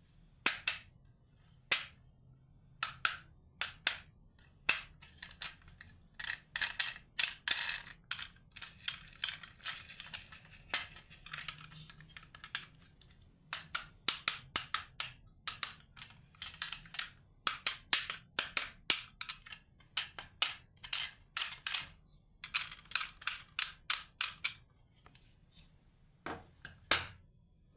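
Marbles rolling and clacking down a wooden marble run: a long, irregular stream of sharp clicks and rattles, with stretches of rolling clatter in between and one last loud click near the end.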